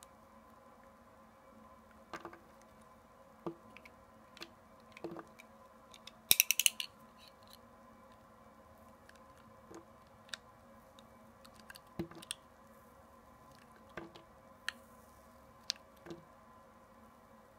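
Utility knife blade slicing and scraping through soft glycerin soap, with soft crisp cuts every second or two. There is a brief crackly burst of sharp clicks about six seconds in.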